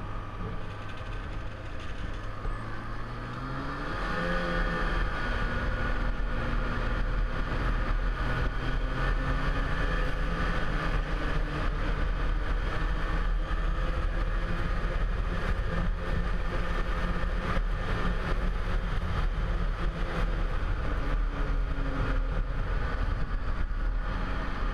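Snowmobile engine heard from the rider's seat, running slowly at first, then revving up with a rising pitch about three to four seconds in, and running steadily at trail speed after that.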